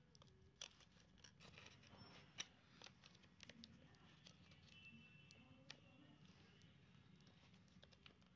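Near silence with faint, scattered clicks and crinkles of fingers handling a laptop display ribbon cable and the yellow tape over its connector on the LCD panel board, with one sharper click about two and a half seconds in.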